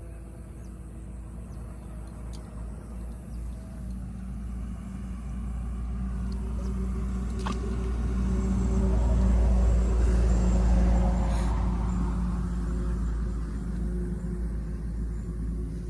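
Engine of a passing motor vehicle rumbling, growing louder to a peak about ten seconds in and then fading.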